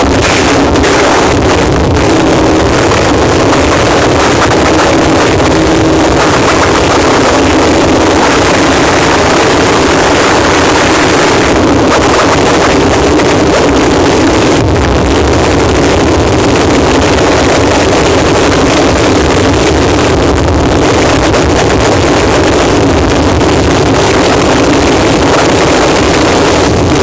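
Harsh noise wall: a loud, dense, unchanging wall of distorted static noise, with a steady low rumble beneath and only slight shifts in its grainy texture.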